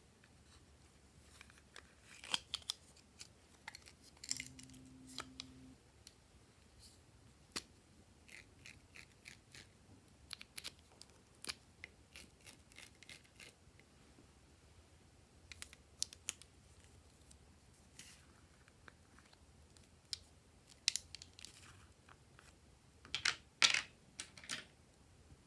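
Glossy slime being pressed, stretched and mixed by hand, giving irregular sticky clicks and small crackling pops, with the busiest run of clicks near the end. A brief low hum sounds about four seconds in.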